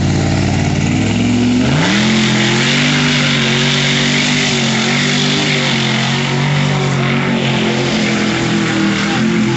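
Lifted GMC Yukon mud truck's engine at full throttle: the revs climb sharply a little under two seconds in and then hold high, with a rushing hiss of spinning tires flinging mud as it runs through the bog in two-wheel drive.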